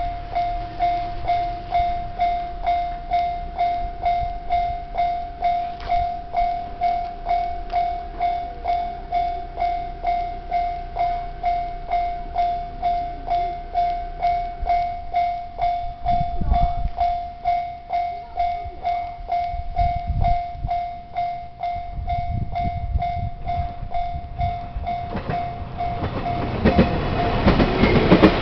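Japanese railway level-crossing alarm ringing, a single repeating ding about twice a second, as a train approaches. In the last few seconds the train's rumble rises and drowns out the alarm.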